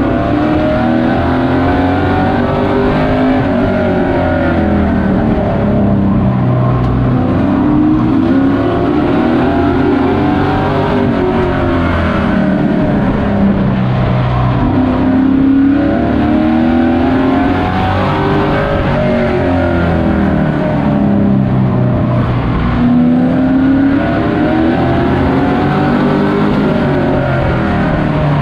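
Race truck's engine heard from inside the cab at racing speed, rising and falling in pitch about every six seconds as it accelerates down each straight and lifts for the turns.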